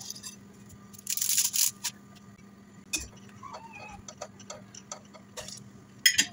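Dry spaghetti rustling as a handful is gathered off a china plate and put into a pot, followed by scattered light clicks and taps. Near the end, a metal fork clinks down onto the china plate.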